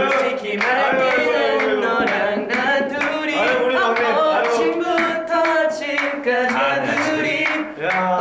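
Male group vocals singing a K-pop dance song, with a steady beat.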